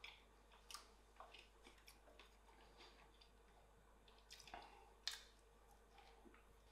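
Near silence with faint scattered clicks and soft wet squishing as a spoon dabs yogurt onto a rolled stuffed pancake and the roll is bitten; the sharpest click comes about five seconds in.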